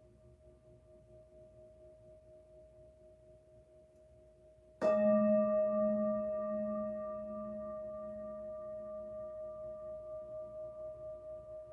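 A singing bowl resting on the palm, struck once with a felt mallet about five seconds in, then ringing on with a pulsing, wavering hum as it slowly fades. Before the strike, the ring of an earlier strike is dying away softly.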